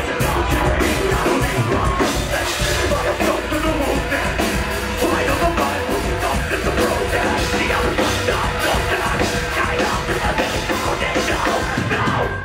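Heavy metal band playing loud, with yelled vocals over the music.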